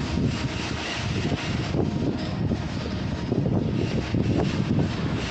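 Construction-site machinery running: a continuous rough low rumble that rises and falls irregularly.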